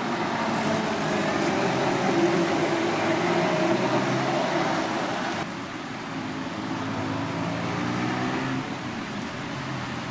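Road traffic noise from cars driving past, with engine hum. It drops abruptly to a quieter, steadier traffic hum about halfway through.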